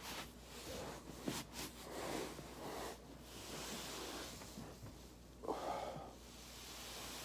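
A person breathing heavily in drawn-out, hissing breaths during a foam-rolling stretch, with a few sharp clicks about a second and a half in.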